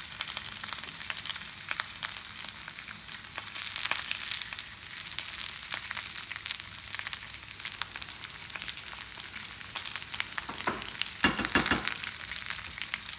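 Food frying in pans, a steady crackling sizzle: a thinly sliced potato base in a cast iron pan and mushrooms in a second pan. A few knocks are heard near the end.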